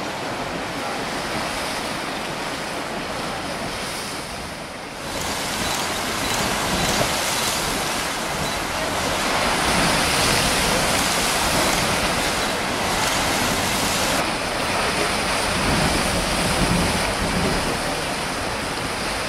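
Geyser and boiling hot spring venting steam and water: a steady rushing hiss that grows louder about five seconds in.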